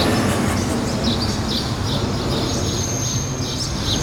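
Street ambience: a steady low traffic rumble with birds chirping over it.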